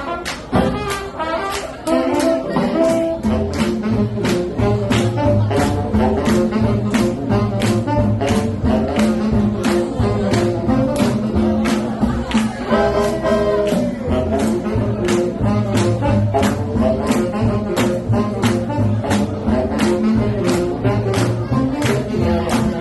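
Recorded swing jazz music with brass horns and a steady beat.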